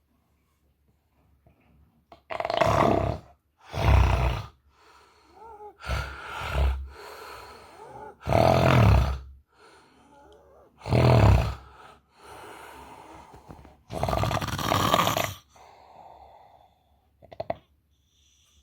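A sleeping person snoring loudly: about six rough, rumbling snores, irregularly spaced a couple of seconds apart, with softer breaths between them.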